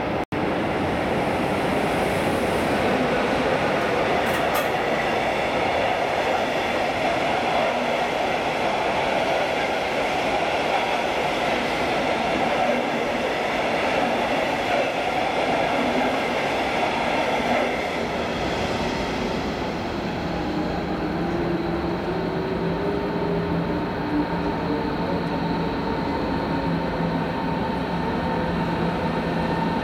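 A red passenger train runs past the platform with a steady rumble of wheels on rail that eases off about 18 seconds in. Then a Berlin S-Bahn class 481 electric train approaches, its electric drive giving steady and slowly rising whining tones over a lower rumble.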